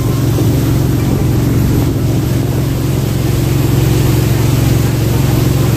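Jet boat's engine running at a steady drone under way on the river, over a constant rushing hiss.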